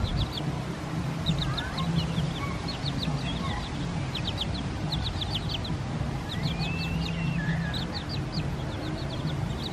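A flock of chickens in a pen: low steady clucking and murmuring, with quick clusters of short high-pitched chirps repeated throughout.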